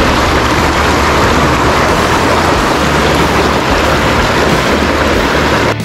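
Steady rushing of a trout stream's flowing water, with a low uneven rumble underneath; it cuts off sharply just before the end.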